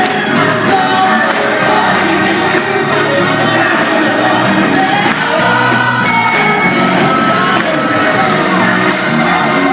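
Loud live music with singing and crowd noise.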